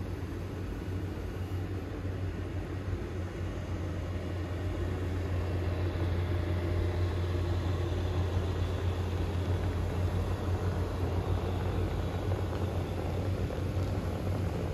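Steady hum and whir of the electric blower fans that keep the inflatable decorations inflated, many running at once, getting a little louder about five seconds in.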